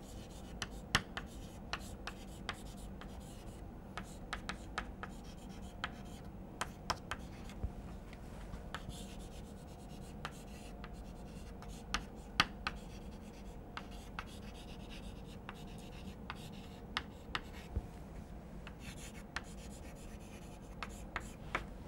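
Chalk writing on a blackboard: irregular light taps and short scratches as the letters are formed, over a faint steady hum.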